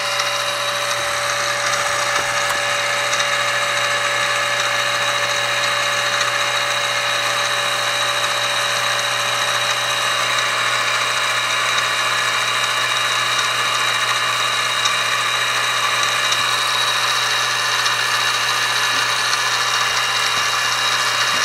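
Sieg X2 mini-mill's motor and geared spindle running steadily at about 1000 RPM: a steady whine with several held tones.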